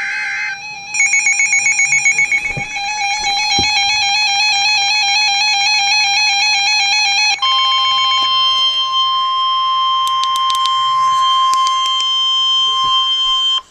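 Emergency alert broadcast opening: a brief burst of the buzzy data header, then a warbling electronic alert tone for about six seconds, then a steady 1050 Hz weather-radio alert tone that cuts off sharply before the warning message.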